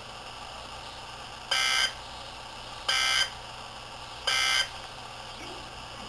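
Three short, identical data-tone bursts about a second and a half apart, over a steady radio static hiss, from a NOAA Weather Radio broadcast played through an AlertWorks EAR-10 weather radio. They are the EAS/SAME end-of-message code that closes the Required Weekly Test.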